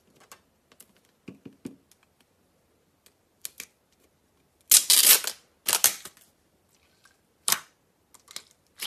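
Clear slime with metallic red swirls being squeezed, stretched and poked by hand in a plastic tub: a scattered series of short squishy crackles, the loudest two longer ones about five and six seconds in.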